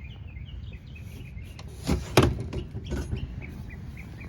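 Wooden chicken-coop door being worked by its handle: a couple of sharp wooden knocks about two seconds in and a lighter knock a second later. A small bird chirps over and over in the background.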